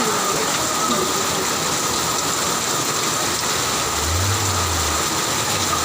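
Steady noise of heavy rain and running floodwater, with a vehicle engine's low hum coming in briefly about four seconds in.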